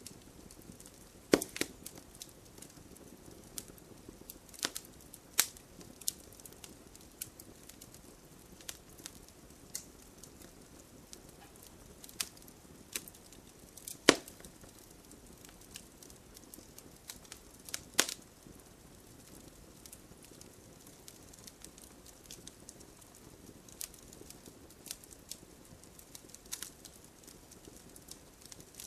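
Wood campfire crackling, with scattered sharp pops and snaps over a low hiss; the loudest snaps come about a second and a half in, at about 14 seconds, and at about 18 seconds.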